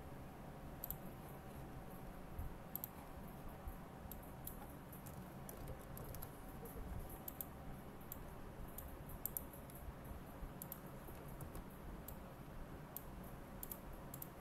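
Irregular clicks of a computer mouse and keyboard, scattered throughout, over a steady low hum.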